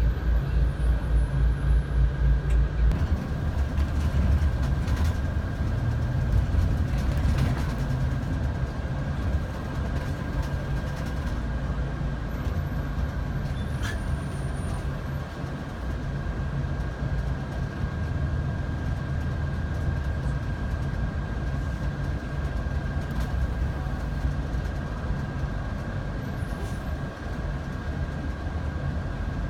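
Steady rumble of a moving vehicle with a constant high whine running over it. A fast low throbbing fades out about three seconds in.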